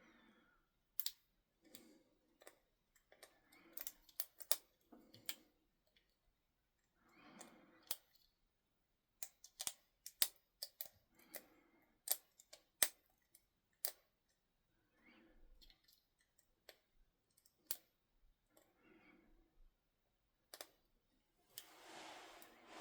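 Lock pick and tension wrench working the pins of an ABUS 30mm padlock in a false set: irregular small sharp clicks and ticks, with soft scraping and handling noise between them.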